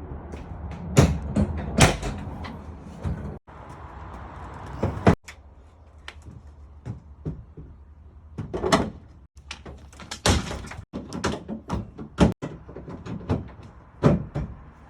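Pickup truck door being worked open and shut several times, a series of sharp clunks and knocks, as a push-button door switch is tested that turns the bed lights off when the door closes.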